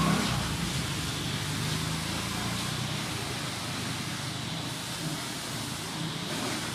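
Steady background noise: a low hum under an even hiss, with no distinct events.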